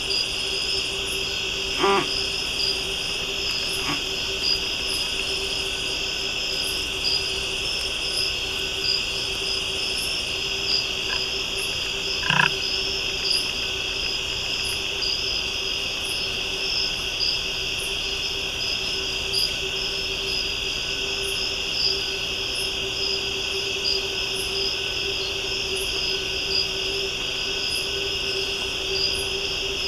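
Night insect chorus in woodland: steady shrill buzzing, high chirps repeating about once a second, and a steady low hum underneath. A few short knocks break in, the loudest about twelve seconds in.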